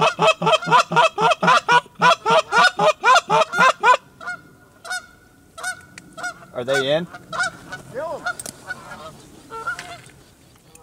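Canada goose honking: a loud, rapid run of short honks and clucks, about five a second, for the first four seconds, then softer, scattered honks.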